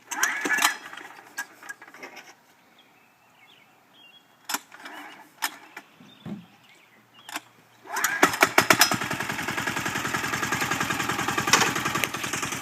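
Yanmar diesel engine of a turbocharged custom motorcycle starting up about eight seconds in and settling straight into a steady idle of even, rapid firing pulses. Before it starts there are only a few scattered clicks and knocks.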